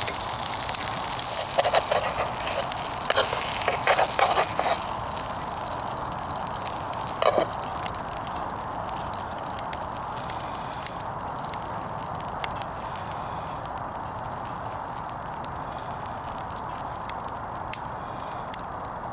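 A wood fire burning steadily in a small portable wood-burning camp stove, with fine crackles throughout. A burst of clattering knocks comes in the first few seconds, and one more knock comes a few seconds later.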